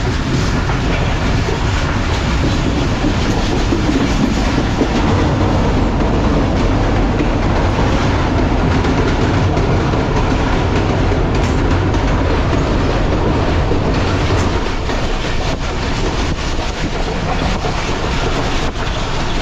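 Passenger train running at speed, heard from an open coach doorway: a steady rumble of the wheels on the rails, with scattered clicks. The low rumble eases a little about three-quarters of the way through.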